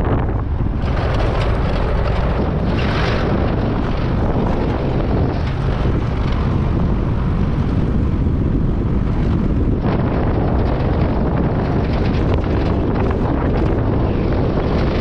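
Loud, steady wind rushing over the microphone, mixed with the road and engine noise of a moving truck.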